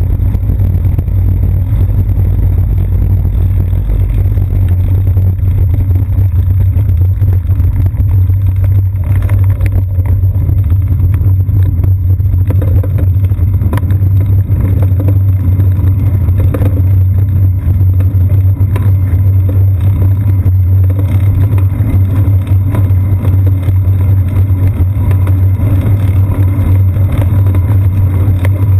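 Loud, steady low rumble of wind and road vibration picked up by a camera mounted on a moving bicycle's seat post, with scattered knocks from bumps in the road through the middle.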